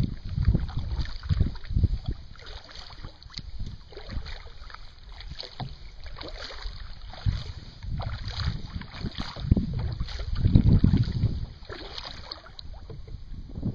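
Kayak being paddled across open water: water swishing along the hull with paddle strokes, while wind buffets the microphone in irregular low gusts, loudest near the end.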